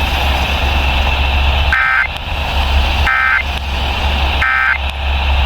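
Emergency Alert System digital data tones over the radio: three short, identical bursts of screechy two-tone data about 1.4 s apart, over a steady hiss and low hum. The bursts are short enough to be the end-of-message code that closes an alert.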